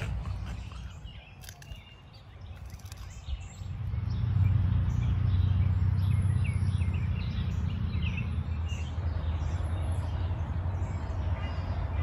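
Birds chirping now and then over a steady low rumble that grows louder about four seconds in.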